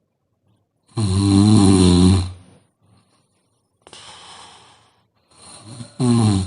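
A sleeping woman snoring: a loud snore lasting just over a second about a second in, then softer breathing, and a second loud snore starting near the end.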